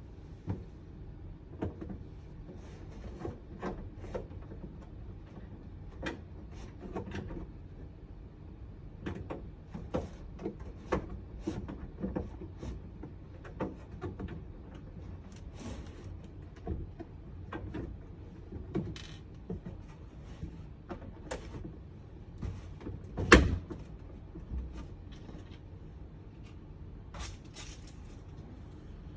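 Scattered clicks and knocks of large diorama pieces being handled and set in place, with one much louder knock a little over twenty seconds in.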